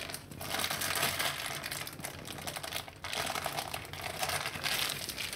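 Thin plastic-bag sheet crinkling and crackling as hands roll it over and along a sheet of dough, with a short break about three seconds in.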